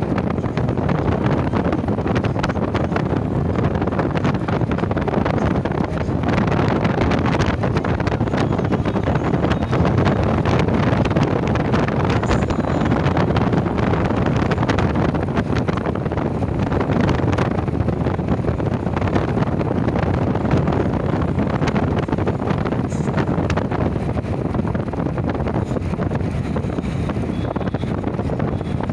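Wind buffeting the microphone and road noise from a moving vehicle: a loud, steady rushing noise, heaviest in the low end, with no break.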